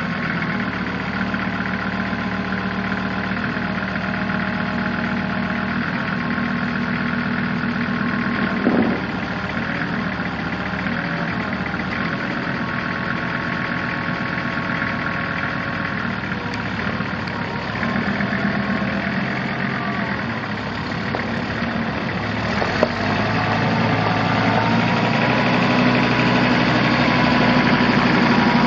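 Kubota M5700 tractor's diesel engine idling steadily, with one brief knock about nine seconds in. Near the end the engine speed and loudness rise a little.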